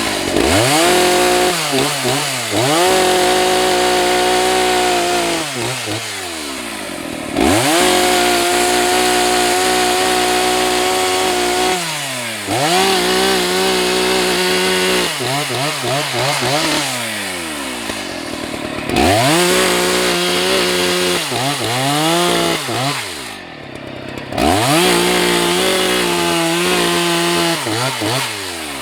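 Husqvarna 181 SE two-stroke chainsaw cutting firewood logs. It runs at high revs for several seconds at a time, then its pitch drops and climbs again between cuts, about five or six times.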